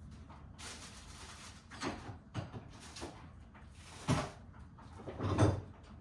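A few separate knocks and clunks over a low background, the loudest near the end.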